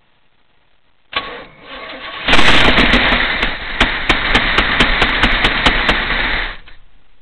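Big-block Chevy 454 V8 on its first start after sitting ten years: the starter cranks for about a second, then the engine catches and runs loud for about four seconds before the sound drops away abruptly near the end.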